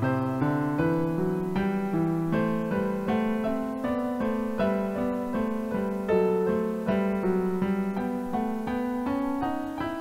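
Background piano music: a steady flow of struck notes with a moving bass line beneath.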